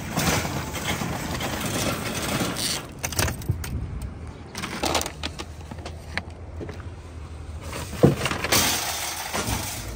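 Shopping cart rattling over pavement with traffic around, then keys jangling as a truck camper's entry door is unlocked and opened, and a single sharp knock about eight seconds in.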